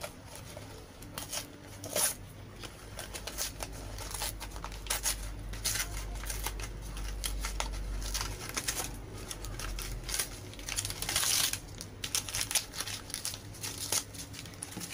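Paperboard cigarette pack being torn open and pulled apart by hand, its foil liner crinkling: irregular tearing and crackling rustles.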